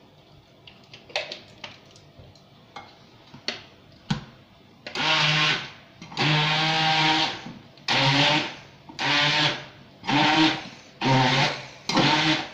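Hand-held stick blender puréeing chickpeas for hummus in a pot, switched on and off in about seven short bursts of roughly a second each, starting about five seconds in. A few light clicks and knocks come before it.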